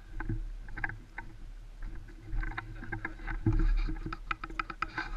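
Irregular light clicks and knocks, busier around the middle, from an airsoft player moving with his rifle and gear.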